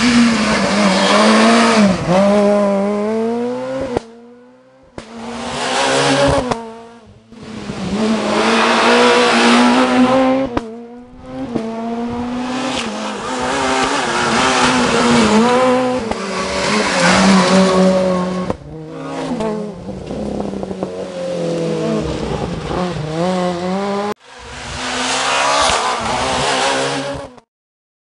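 Peugeot 207 S2000 rally car's engine at race revs, its pitch climbing and dropping again and again through gear changes and lifts as the car drives past. It is several separate passes, each broken off abruptly.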